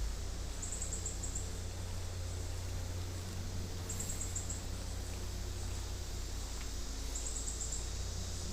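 Outdoor creek ambience: a steady hiss of flowing water over a low rumble. Three times, about every three seconds, a short, very high, rapid trill of chirps sounds from a small animal, such as an insect or a bird.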